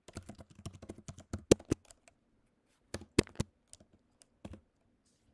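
Typing on a computer keyboard: a quick run of keystrokes for about two seconds, then a few spaced key presses that stop about four and a half seconds in.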